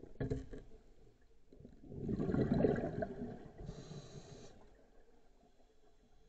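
Scuba diver breathing through a regulator underwater: a loud, burbling rush of exhaled bubbles about two seconds in, followed by a short hiss.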